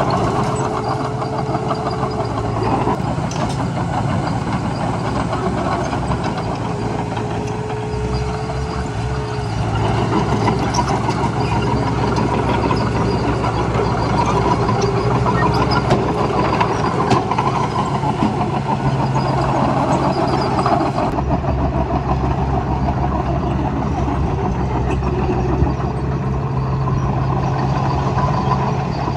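The heavy diesel engine of earth-moving machinery runs steadily at work, with a thin whine coming and going during the first ten seconds.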